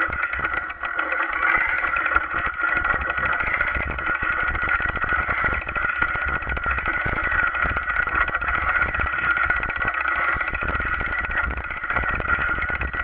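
A bicycle rattling and jolting over a rough, muddy trail, picked up by an action camera mounted on the bike. It makes a continuous clatter of rapid, irregular knocks over a steady hum and low rumble.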